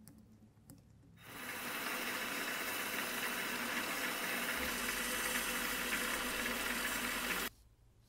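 A variable-speed mini lathe runs while 800-grit sandpaper is held against the spinning aluminum dial, making a steady hiss of sanding off excess paint over a low motor hum. It starts about a second in and cuts off abruptly near the end.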